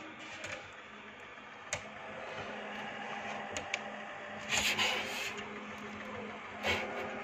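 Steady hum of the incubator's small electric fan running, with a few scraping, rubbing noises, the loudest about four and a half to five seconds in and another near the end.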